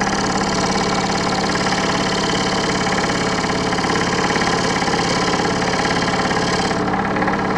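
Scroll saw running steadily, its reciprocating blade cutting the end of a thin wooden trim strip in light nibbles. A high cutting hiss sits over the motor's hum and drops away near the end.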